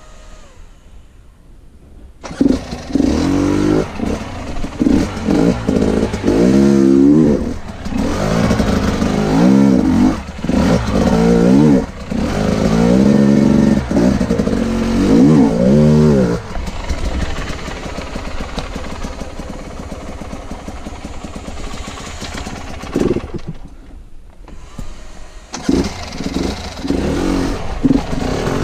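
KTM dirt bike engine revving hard in repeated bursts, its pitch rising and falling, as it climbs over rocks under load. It comes in about two seconds in, settles to a steadier lower note after the middle, drops almost away for a couple of seconds near the end, then picks up again.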